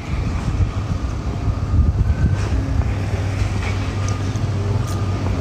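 Street traffic: a steady low rumble of passing cars.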